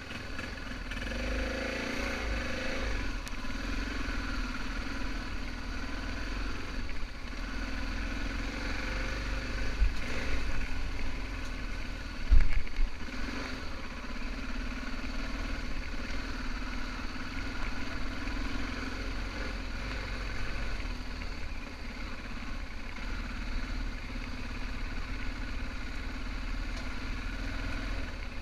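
BMW F650GS motorcycle engine running on an off-road ride, its revs rising briefly about a second in and then holding a steady drone under a low rumble. A sharp knock about twelve seconds in is the loudest moment.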